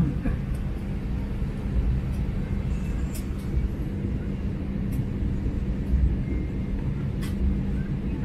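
Cabin of an Airbus A320 at the gate with the door shut: a steady low drone of the ventilation with a constant hum, broken by a few faint clicks.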